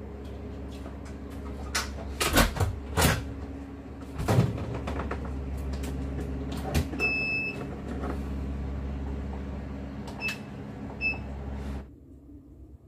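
Knocks and clatter from handling an electric pressure cooker over a steady electrical hum, with short electronic beeps from its control panel about halfway through and twice near the end. The hum cuts off about a second before the end.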